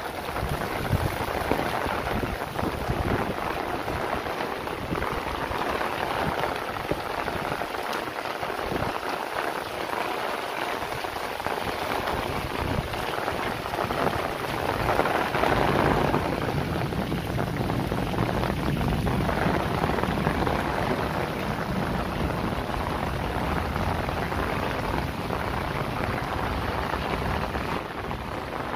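Heavy rain falling steadily on a paved lane and walls, with rainwater pouring from roof drain spouts and splashing on the wet ground.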